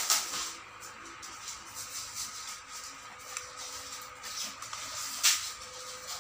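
Hands handling the plastic quartz movement on the back of a metal wall clock and its packing material: soft rubbing and light knocks, with one louder rustle about five seconds in.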